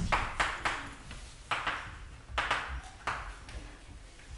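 Chalk writing on a blackboard: a run of sharp taps and short scratchy strokes, about ten in all, coming in irregular clusters with short pauses between.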